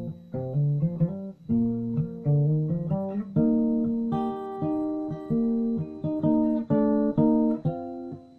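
Acoustic guitar playing an instrumental passage of picked notes and chords, each note ringing and fading before the next.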